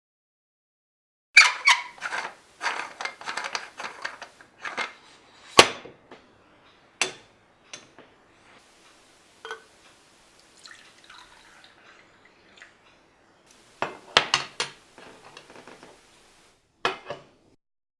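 Irregular clinks and knocks of cups, glass and metal utensils being handled, in clusters, with the sharpest strikes about a second and a half in, five and a half seconds in and near fourteen seconds.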